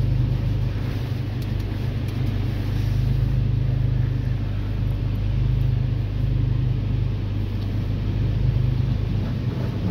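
Automatic car-wash water spray hitting the car's windshield and body, heard from inside the cabin as a steady wash of noise over a steady low rumble.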